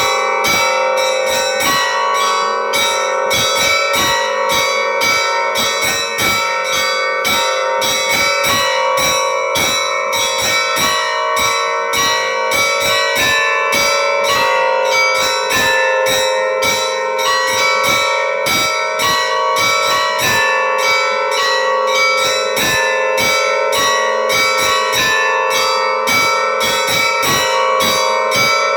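Church bells ringing in a continuous peal: rapid strikes, about two or three a second, over the steady ringing of several larger bells.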